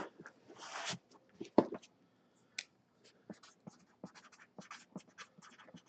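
Light handling noises: scattered small clicks and scratching, with one sharper click about a second and a half in.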